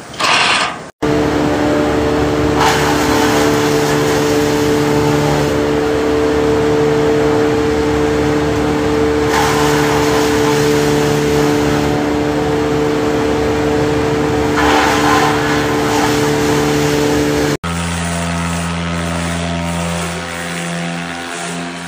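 A trailer-mounted wood chipper running steadily, with three spells of louder rough noise as branches are chipped. It opens with a brief drill whir and ends with a cut to a lower steady motor hum from a handheld powered concrete float.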